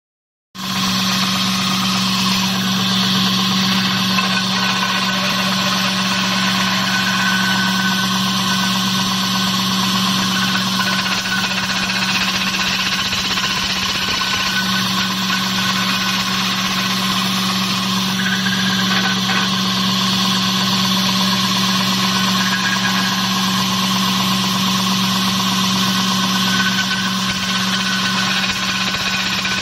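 Wood stick sanding machine running: a steady electric motor hum under the even hiss of the abrasive belt sanding a round wooden dowel as the rubber feed wheel drives it through.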